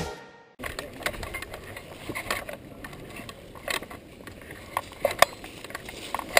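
Intro music fades out at the very start. Then scattered clicks and knocks as an airsoft M249 SAW replica and its sling rattle while it is carried on foot.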